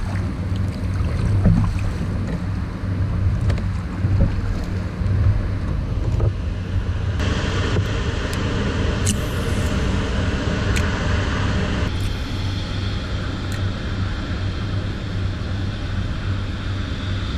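Steady rushing noise of wind on the microphone and moving river water, with a few faint clicks.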